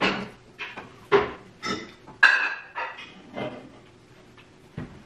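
A string of short clatters and knocks, about two a second, then one more near the end: takeout food containers and food being handled on a table while eating.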